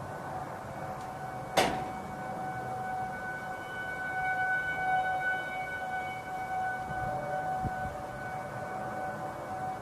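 A steady, siren-like droning tone of the so-called "strange sound in the sky", which witnesses liken to a train or ships' horns. It swells around the middle and eases off, with a single sharp click about one and a half seconds in.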